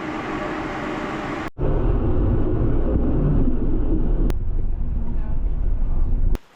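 Steady noise of a cruise boat under way: low engine rumble mixed with wind and water, in three short clips cut together, the rumble heavier after the first cut.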